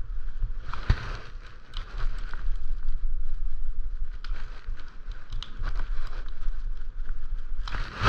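Handling noise from work on bicycle handlebar grips: scattered clicks and rustling over a low rumble, with a louder clatter near the end.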